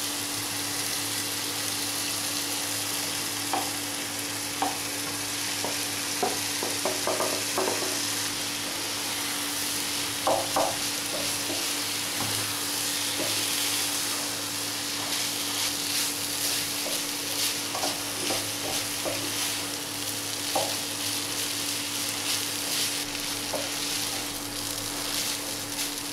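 Cooked rice being stirred into tomato masala in a hot non-stick pan: a steady sizzle, with scattered light knocks and scrapes of a plastic spatula against the pan.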